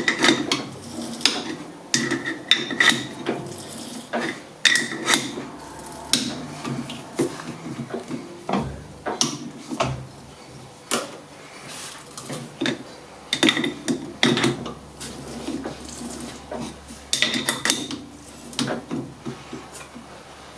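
A tap handle and tap being worked by hand to cut a thread in steel held in a metal lathe, giving irregular metallic clinks with short ringing, and scraping as the tap turns and backs off to break the chip.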